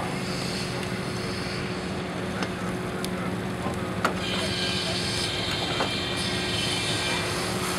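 Advance Rumely steam traction engine running with a steady low mechanical hum and a few light clicks; a higher hiss comes in about four seconds in.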